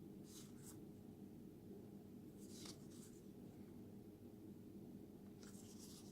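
Faint swishes of baseball trading cards sliding against one another as they are flipped through: a few short strokes, a longer one near the end, over a steady low hum.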